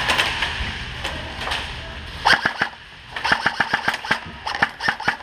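Airsoft guns firing: a couple of sharp shots a little past two seconds in, then a quick, uneven string of shots from about three seconds in to near the end.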